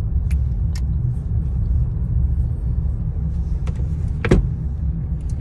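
Steady low rumble inside a car's cabin, with a few light clicks from handling a lip gloss tube. About four seconds in comes a single sharp knock as the sun visor is flipped up against the roof lining.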